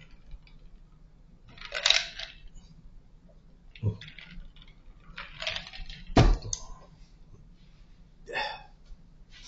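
Taking pills from a plastic weekly pill organiser: pills rattling and plastic handling noises, with one sharp click a little past halfway, like a compartment lid snapping.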